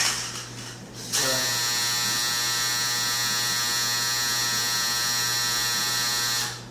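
Clothes dryer's end-of-cycle buzzer, a steady harsh buzz that starts abruptly about a second in and holds for about five seconds before cutting off, signalling that the drying cycle has finished.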